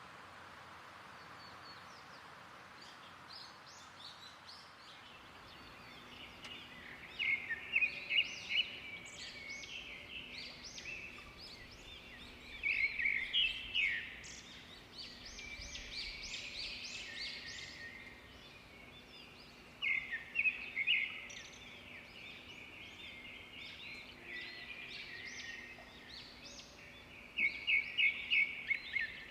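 Birds calling over a faint steady hiss, with four louder bursts of quick repeated chirps spaced several seconds apart.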